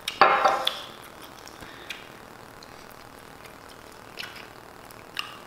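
Close-up eating sounds: a loud, wet slurp about a quarter of a second in, then a few scattered soft smacking clicks of chewing and biting into a burrito.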